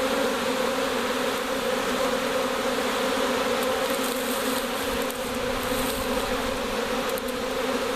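A honey bee swarm in flight: the dense, steady buzz of thousands of bees flying all around.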